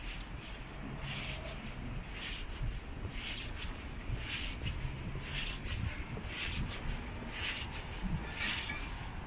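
Footsteps of a person walking on a paved street: light, evenly spaced steps about once a second over a faint low hum.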